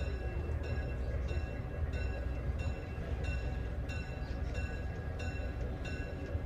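Diesel locomotive approaching slowly, its engine giving a steady low rumble, while its bell rings steadily at about one and a half strikes a second.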